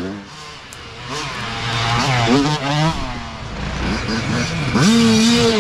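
Dirt bike engine revving and easing off several times as the throttle is worked, then held at high revs for about a second near the end.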